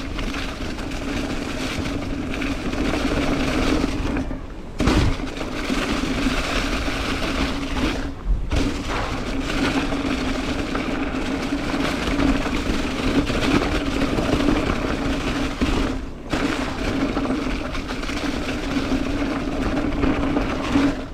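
Mountain bike rolling fast down a gravel fire road: tyre noise on the gravel and wind rush, with a steady hum. The noise drops out briefly three times.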